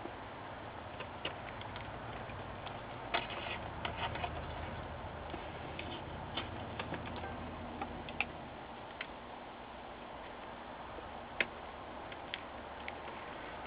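Scattered light clicks and ticks of tiny screws and a small screwdriver being handled and driven into a laptop screen's side mounting bracket, over a steady hiss. The clicks are irregular, bunched together about three to four seconds in, with the sharpest single click near the end.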